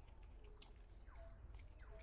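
Faint chewing and clicking of monkeys eating corn, with two short squeaks falling in pitch about a second in and near the end.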